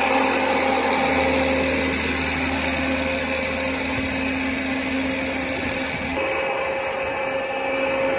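Old engine-driven farm blower fan running at full blast: a steady rush of air over the steady hum of its engine. The sound shifts slightly about six seconds in.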